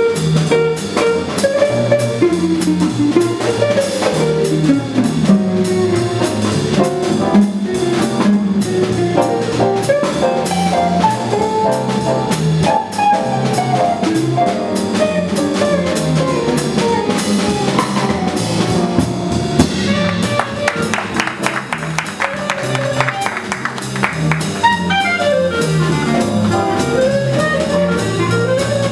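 Small swing jazz combo playing live: a hollow-body archtop electric guitar solos over walking double bass, piano and drum kit, and the clarinet plays near the end.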